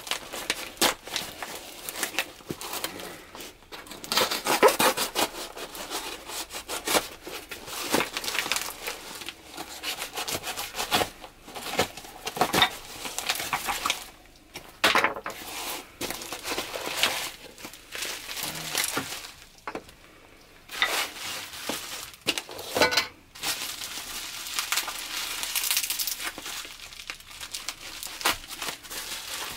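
A parcel being unwrapped by hand: a knife cutting through plastic wrap and packing tape, cardboard box flaps being pulled open, and bubble wrap crinkling, in irregular bursts of crinkling and tearing.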